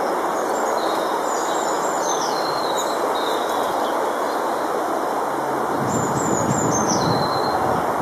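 A songbird singing short, high, wavering phrases, first in the opening few seconds and again about six seconds in, over a steady, loud hiss of outdoor background noise.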